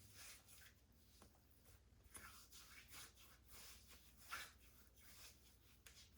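Near silence with faint, soft, irregular rubbing: hands spreading aftershave balm over the face.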